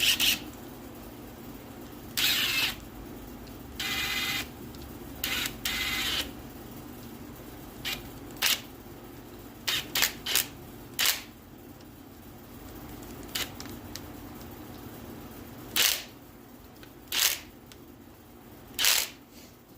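Ratchet wrench clicking in short runs as bolts are run into an engine block, with single sharp metal clicks and clinks of the tool and bolts in between.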